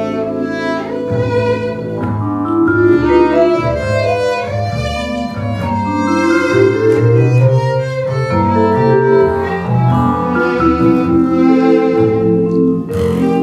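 Violin bowing a melody with vibraphone and upright double bass playing along.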